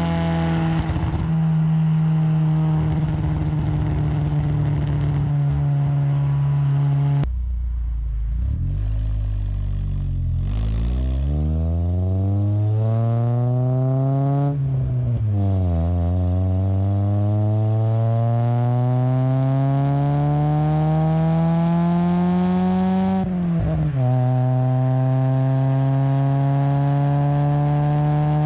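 6th-gen Honda Accord with an aftermarket cat-back exhaust: the engine drones at a steady pitch, then pulls with a long rising pitch, drops briefly at an upshift, and climbs again before cutting off abruptly, then drones steadily once more.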